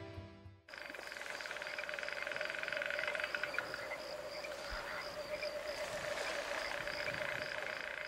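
A chorus of frogs and chirping insects, starting about a second in after the last guitar chord dies away: a steady trill with a regular chirp about two or three times a second.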